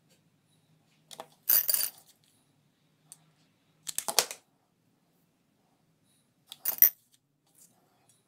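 Faceted crystal beads clinking against glass, in three short clusters of light clicks: about a second and a half in, at about four seconds, and near seven seconds.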